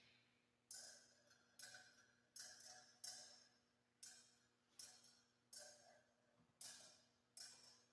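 About ten faint metallic clinks, a little under a second apart, each ringing briefly.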